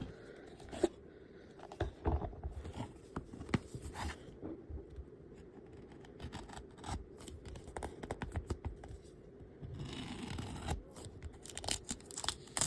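Knife cutting open the seal of a product box: scattered scratches and clicks of the blade and packaging, with a longer rasping cut about ten seconds in.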